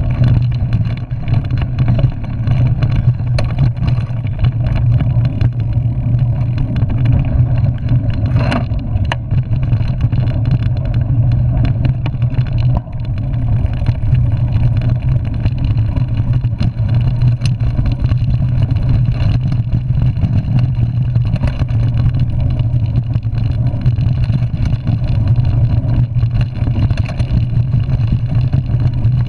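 Mountain bike riding a dirt singletrack, heard through a handlebar-mounted camera: a loud, steady rumble of wind and trail vibration, broken by a few sharp knocks and rattles from bumps.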